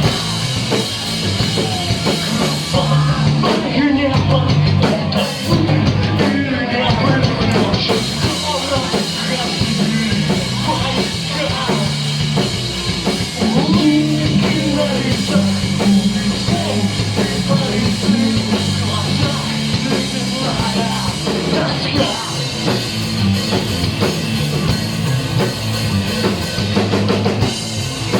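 A rock band playing live and loud, with a drum kit and a moving bass line under the band.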